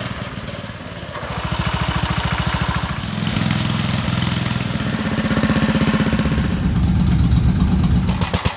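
Small gasoline engines running in short clips cut together, the engine note changing about a second in and again about three seconds in.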